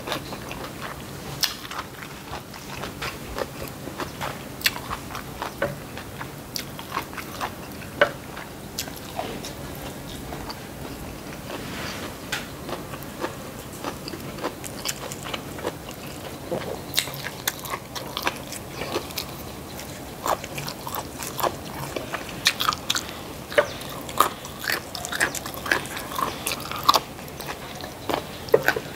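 Close-up chewing and crunchy biting of food: a run of crisp clicks and crunches that grows busier in the second half.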